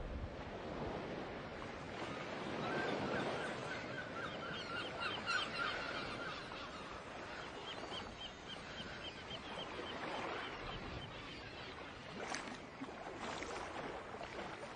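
Birds calling in runs of quick repeated notes over a steady wash of ocean waves.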